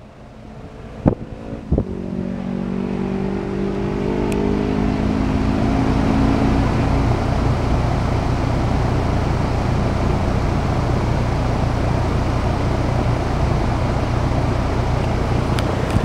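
2015 Rheem Classic Plus heat pump outdoor unit starting up: two sharp clicks, then the condenser fan spins up with a whir that rises in pitch over several seconds. It settles into steady running with a low compressor hum.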